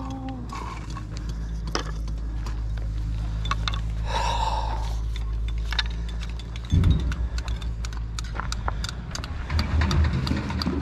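Thin stone slabs and chips clicking and clinking as gloved hands handle and knock them together, with a scrape about four seconds in. Underneath is a low rumble of wind on the microphone, with gusts about seven seconds in and near the end.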